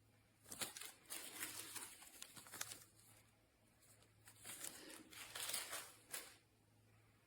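Crinkling and rustling handling noise with small clicks, in two bursts about two seconds long with a short pause between them.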